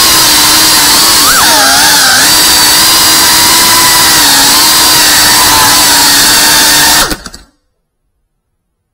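FPV quadcopter's motors and propellers whining at a steady, high pitch, with a short rise and dip in pitch about a second and a half in. The whine cuts off suddenly about seven seconds in as the motors stop and the drone comes to rest.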